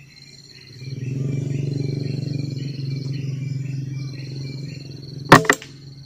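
A PCP air rifle fires once about five seconds in, a sharp crack followed a split second later by a second, weaker smack. Before the shot a low steady hum runs for several seconds, under a thin high insect trill.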